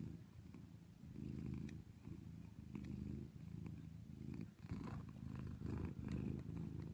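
Cat purring close up: a low, steady rumble that comes in repeated pulses, under a second each.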